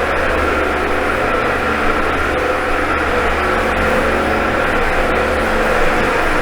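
Dyson vacuum cleaner running steadily with a loud, even motor whine while it is pushed over the living room floor.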